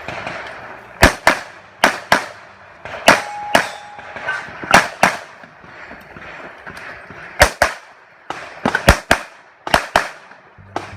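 Handgun shots fired mostly in quick pairs about a quarter second apart, with gaps of a second or more between pairs and a fast cluster of shots near the end of the first nine seconds: the rhythm of double taps on successive targets.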